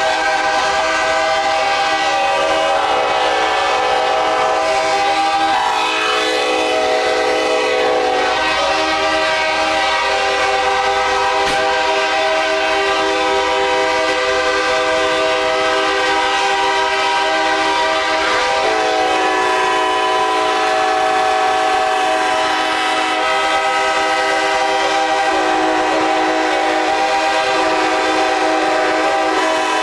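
Locomotive air horns blowing continuously together, a loud sustained chord whose notes change every few seconds as horns start and stop.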